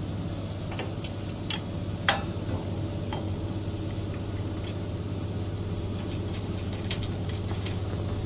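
Steady low hum, with a few sharp metallic clicks and taps from parts and tools being handled during assembly of the cutting machine. The loudest tap comes about two seconds in.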